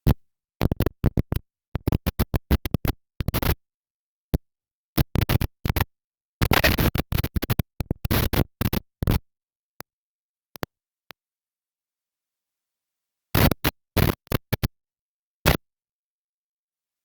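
Mini skid steer's diesel engine running, heard only in choppy bursts that keep cutting out to dead silence. The sound drops out completely for most of the last third, with a few short bursts near the end.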